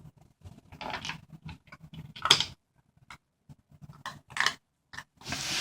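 Shiba Inu puppy eating from its bowl: irregular crunching and clicking bursts of eating noise.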